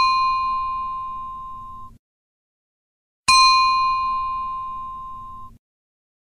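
A glass pinged: a clear ringing tone that slowly fades and then cuts off abruptly. One ping is already ringing at the start and stops about two seconds in; a second strike comes a little after three seconds and rings out the same way.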